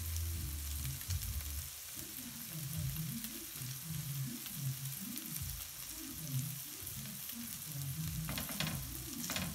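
Frikadellen frying gently in a little sunflower oil in a stainless steel pan over a low gas flame: a soft, steady sizzle, with a few sharper crackles near the end.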